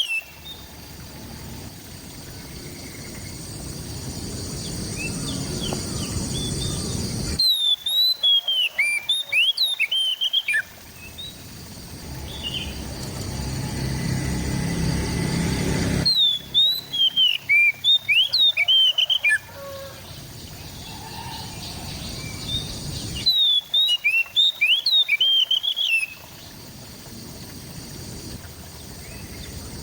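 Oriental magpie-robin (kacer) singing in three short bursts of rapid, sweeping whistled notes, each about three seconds long. Between the bursts a rushing noise slowly grows louder, then cuts off abruptly when the song returns.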